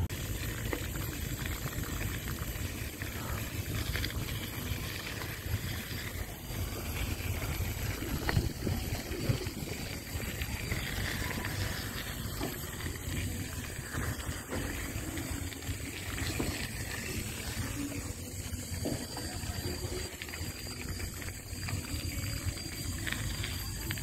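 Steady rushing noise of wind on a phone microphone while a mountain bike is ridden slowly, with a few faint knocks.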